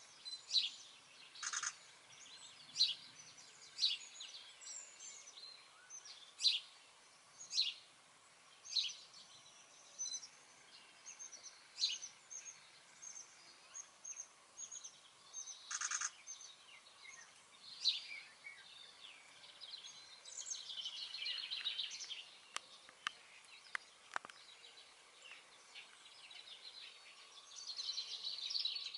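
Wild songbirds calling: short, sharp high notes repeated about once a second, with a longer stretch of busy twittering about two-thirds of the way through and again near the end.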